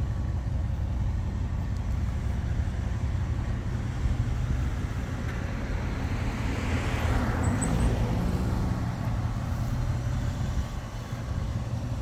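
Cadillac Northstar 32-valve DOHC V8 idling, a steady low hum. About halfway through, a hiss swells and fades over a few seconds.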